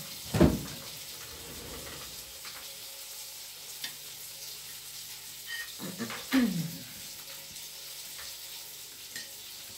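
Light clinks of a fork and knife on a ceramic plate over a steady faint hiss. Two short sounds falling in pitch stand out, the louder about half a second in and another about six seconds in.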